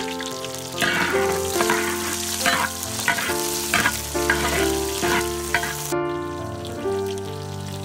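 Dried red chillies, garlic and ginger sizzling in hot oil in a wok, stirred with a metal spatula that scrapes the pan in short repeated strokes. The sizzling stops abruptly about six seconds in, leaving background music, which plays throughout.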